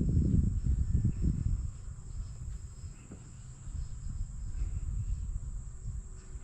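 Wind buffeting the microphone, a heavy low rumble that eases off about two seconds in, over a steady high-pitched insect drone.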